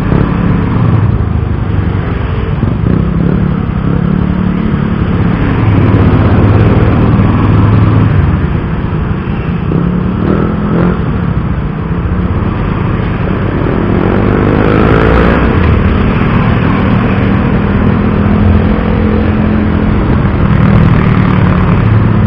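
Rusi Gamma 200 motorcycle being ridden on the road, its engine running steadily with the rush of air. The engine note rises briefly about two-thirds of the way through.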